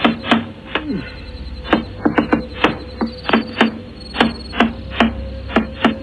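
Hand knocking repeatedly on a front door, picked up by a doorbell camera's microphone. The knocks come in quick, irregular runs of sharp raps, with a short pause about a second in.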